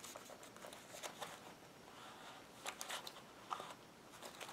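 Faint rustling and a few small scattered clicks of hands handling a snug-fitting leather wallet packed with a flashlight, cards and cash.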